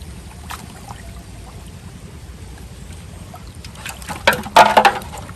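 Water trickling steadily, with a short burst of splashing about four and a half seconds in.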